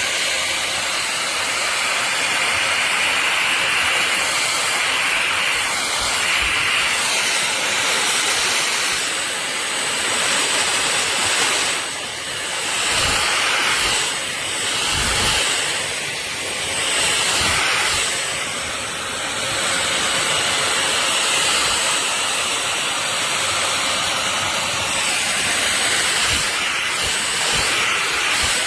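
Cordless stick vacuum running steadily, its motor and airflow making a loud rushing hiss with a faint high whine. The level dips and swells several times in the middle as the load on it changes.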